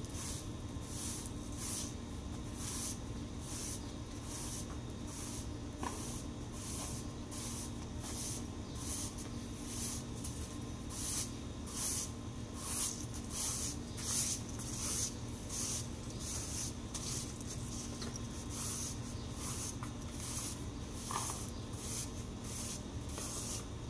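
Long-handled broom sweeping a paved floor: repeated bristle swishes, roughly one to two a second, over a steady low hum.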